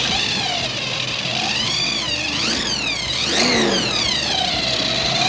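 Ford Mustang Cobra V8 engine being revved, a high whine swooping up and down in pitch with each blip of the throttle, three times.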